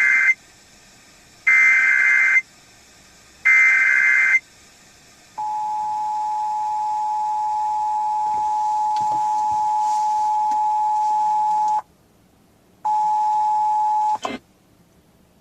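Emergency Alert System test signal over the radio. It opens with the end of one burst of buzzing digital header data and two more bursts of about a second each, one second apart. About five seconds in, the steady two-tone attention signal starts and holds for about six seconds, breaks off briefly, then sounds again for about a second.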